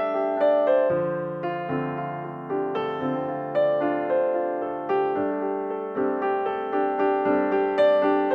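Background music: solo piano playing a steady run of notes, about three a second.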